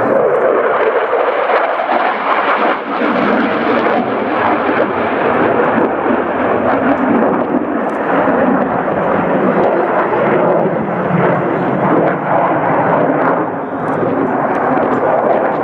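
Loud, steady jet engine noise from an F-16 fighter flying a display overhead, a dense rushing sound that dips briefly about three seconds in and again near the end.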